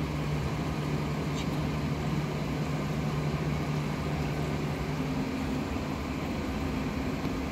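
A steady low mechanical hum over an even background rumble.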